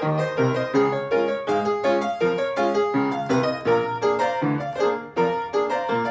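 Upright piano played with both hands: a steady, even run of notes, about four a second, each struck and left to ring over chords.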